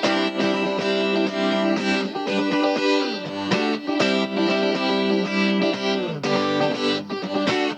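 Background music: an instrumental passage of a song led by effected electric guitar, with sliding guitar notes.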